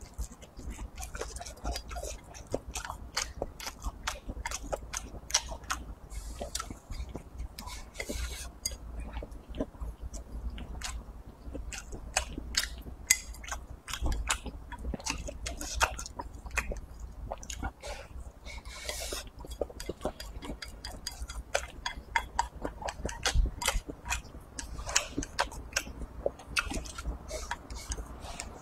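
A person chewing and biting a mouthful of rice with stir-fried soybeans: a dense run of quick, crisp clicks and crunches, with wooden chopsticks scraping and tapping a ceramic bowl as the food is pushed into the mouth.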